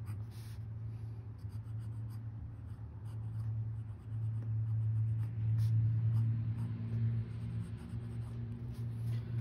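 Gold #94 medium italic nib of a Parker Duofold Centennial fountain pen scratching across notebook paper in short strokes as it writes a line of text, a stub nib with quite a bit of feedback. A steady low hum runs underneath.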